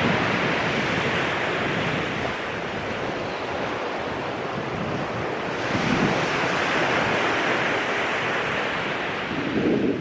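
Ocean surf washing onto a beach: a steady rush of breaking waves that swells about six seconds in and again near the end.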